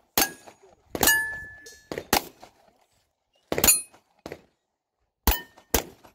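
A string of about six handgun shots at uneven spacing, with a pause of over a second near the middle, several followed by the short ring of a struck steel plate target.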